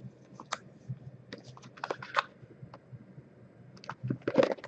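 Scattered light clicks and taps from hands handling things at a desk, with a denser run of louder clicks near the end.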